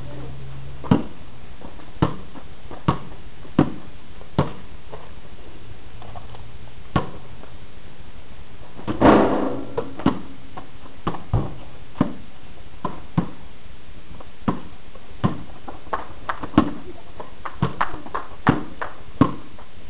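Sharp taps and thumps at uneven intervals, roughly one a second and bunching closer together near the end, with a longer, louder burst about nine seconds in.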